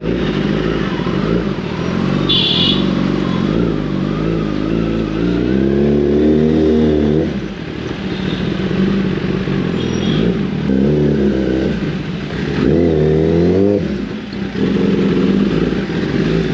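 Kawasaki Ninja sportbike engine at low speed, its pitch rising and falling several times with the throttle as it creeps along, then running steadily near the end. A short high beeping sounds about two and a half seconds in.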